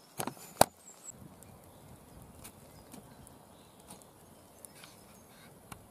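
A couple of sharp clicks in the first second, the loudest just after half a second in, then a wood campfire crackling with sparse, faint pops.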